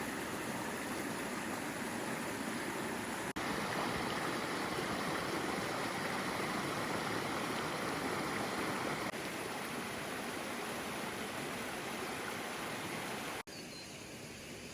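Steady rushing noise that changes abruptly three times, getting quieter after the last change near the end.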